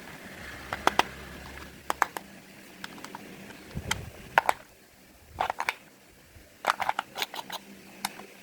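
Irregular sharp clicks and taps of small hard objects being handled, some single and some in quick clusters of two to four.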